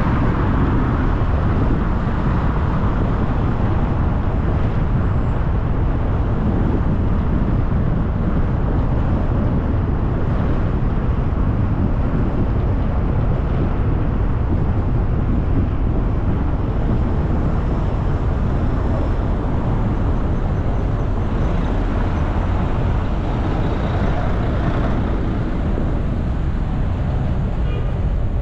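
Steady road and wind noise of a car driving along a city street, a constant low rumble with passing traffic.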